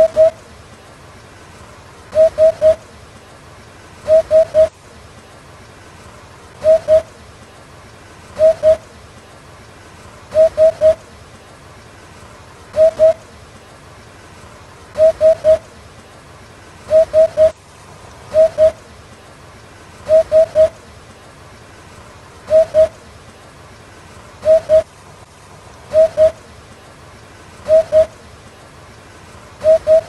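Eurasian hoopoe calling its hooting song: short notes on one pitch in groups of two or three, 'oop-oop' or 'oop-oop-oop', repeated about every two seconds.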